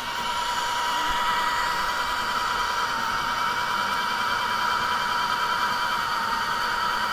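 Home-built 3D printer running a print: a steady mechanical whir with several steady high tones, from its fans and motors, growing slightly louder about a second in.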